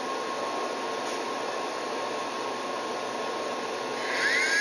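Steady fan-like background hiss; about four seconds in, the WL v911 RC helicopter's small electric motor spins up with a rising whine as the rotor starts turning, carrying a one-nickel (5-gram) payload.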